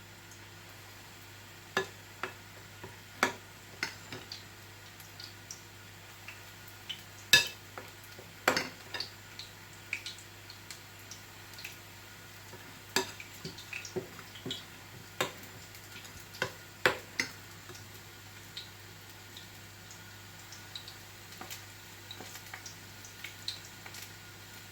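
A spoon clicks and knocks against a bowl and a frying pan as kefir pancake batter is spooned into hot sunflower oil. The knocks are irregular, with one louder knock about 7 s in. Under them the oil sizzles faintly and there is a steady low hum.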